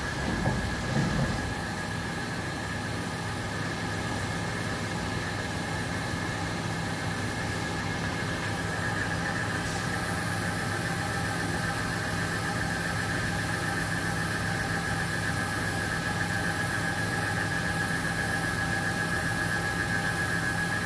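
Haas VF-3 vertical machining center milling a metal block: the spinning cutter gives a steady high-pitched squeal with a low hum beneath it.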